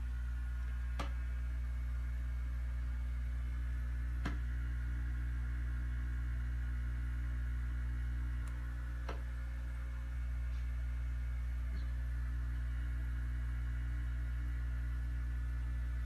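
Steady low electrical hum of aquarium equipment running, with a few faint clicks.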